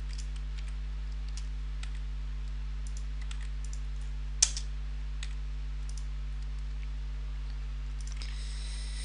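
Scattered computer mouse and keyboard clicks, one louder click about four and a half seconds in, over a steady low hum.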